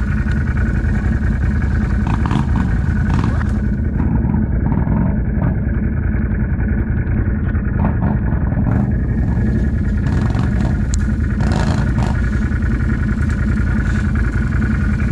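Can-Am ATV engine running steadily while the quad is ridden, loud and unbroken.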